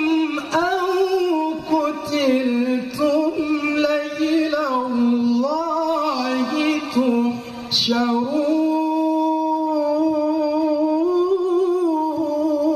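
Male qari reciting the Qur'an in melodic tilawah style: a single voice draws out long notes with wavering ornaments, gliding down to a lower held note around the middle and again near the end.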